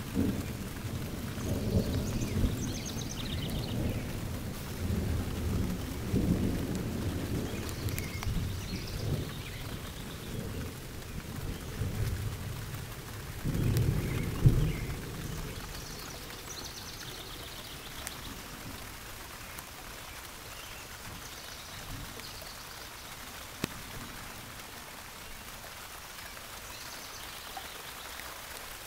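Thunder rumbling low and long over steady rain, swelling to its loudest about halfway through and then dying away, leaving only the rain falling.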